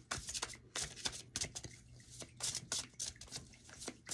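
A deck of tarot cards being shuffled by hand, overhand from one hand into the other: an irregular run of light card flicks and slaps, about four a second.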